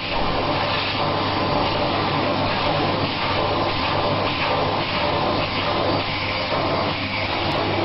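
Vacuum cleaner running steadily with a low hum, its nozzle being drawn through a cat's fur.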